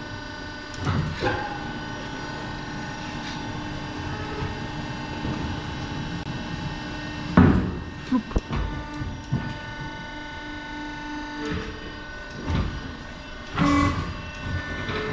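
Tyre changer working a large tractor tyre onto its steel rim: a steady machine hum while the wheel is turned, broken by several clanks and thumps, the loudest about seven and a half seconds in.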